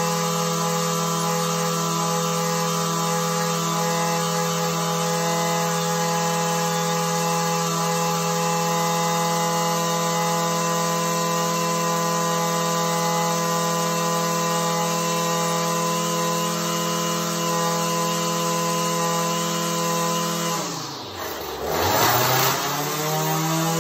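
Echo SRM-225 string trimmer's two-stroke engine idling steadily after a cold start. Near the end its speed sags sharply, then picks back up and settles at the same idle.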